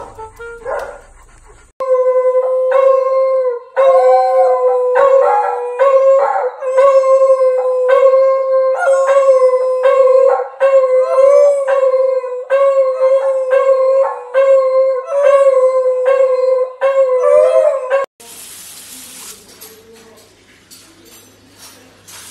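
Two beagles howling together in a long run of held howls, each about a second long, one after another, cut off suddenly about 18 seconds in. After the cut, water hisses from a handheld shower spray.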